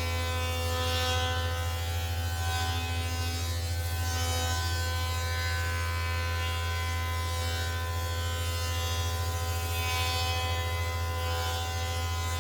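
Electric woodworking machine motor running steadily with a continuous buzzing hum that holds one pitch throughout.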